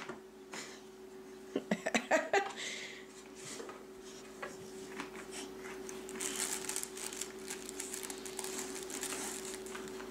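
Rustling and crinkling of a soft fabric baby toy as a large dog pushes it about with its nose, starting about six seconds in. A few sharp taps about two seconds in, over a steady hum.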